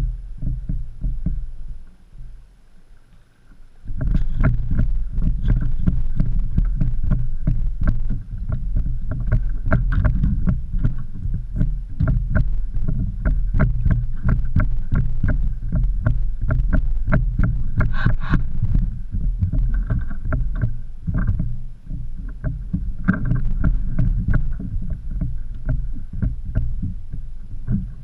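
Mahimahi thrashing on and against a plastic fishing kayak as it is landed: a rapid, uneven run of knocks and thumps through the hull, starting about four seconds in.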